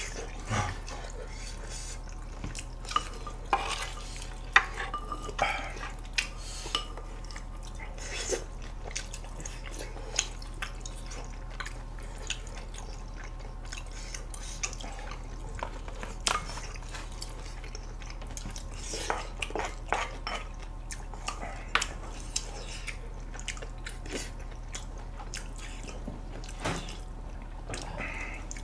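Eating sounds: chopsticks and a wooden spoon clicking against dishes, with small wet mouth sounds scattered throughout, over a steady low hum.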